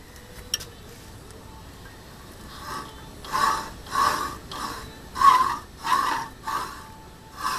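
A chime tool scraping a groove into the base of a horn cup while the lathe chuck is turned by hand. The scraping comes in short, even strokes, about one and a half a second, starting a few seconds in after a quiet stretch with a single click.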